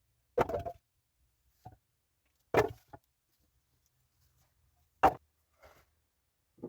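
Three hard chopping blows into wood, spaced about two and a half seconds apart, with lighter knocks between them.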